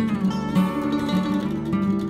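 Background music led by a plucked acoustic guitar, with sustained notes and a few sliding pitches.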